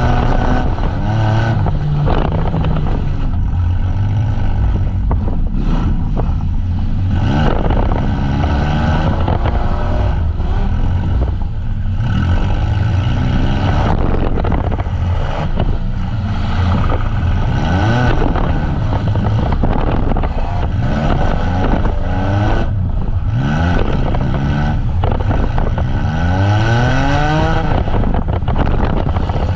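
Several demolition derby van engines revving hard at once, their pitch climbing and dropping again and again over a steady low rumble.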